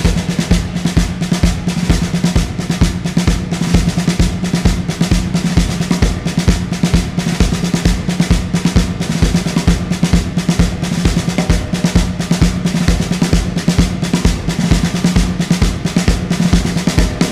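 Rock music instrumental section: drums play a fast, even beat over a held low note.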